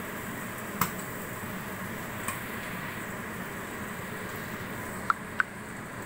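Steady hiss with a few sharp clicks that ring briefly: one about a second in, a fainter one about two seconds in, and two in quick succession near the end.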